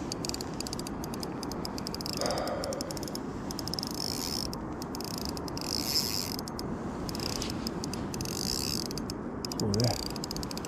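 Shimano Stradic 3000 spinning reel working under a heavy hooked catch, with a fast, irregular mechanical clicking and whirring throughout.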